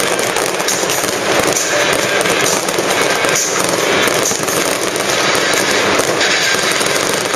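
Fireworks display going off in a dense, continuous barrage of rapid bangs and crackles with no pause.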